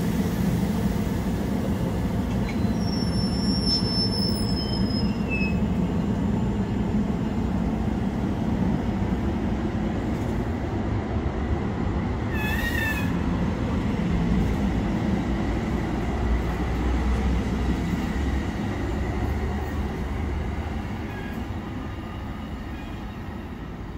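Bombardier bilevel commuter coaches rolling past with a steady rumble of wheels on rail, and a brief high wheel squeal a few seconds in. The sound fades near the end as the train draws away.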